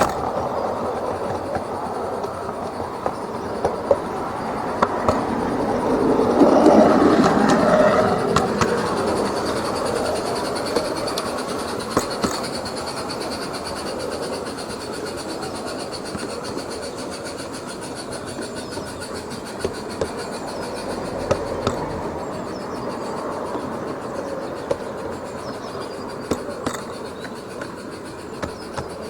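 SM32 garden-railway goods train rolling along the track, its wheels clicking over the rail joints. It grows loudest about six to eight seconds in as it passes close, then slowly fades.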